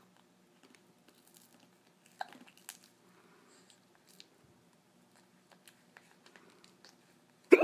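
Hiccups: a short sudden hiccup about two seconds in and a loud one near the end, with faint small mouth clicks in between.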